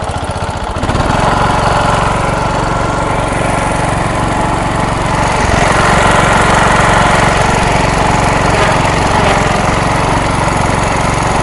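MTD riding mower engine running with the choke pulled out a little, which keeps it from dying. The engine picks up speed through the first second, then runs loud and steady.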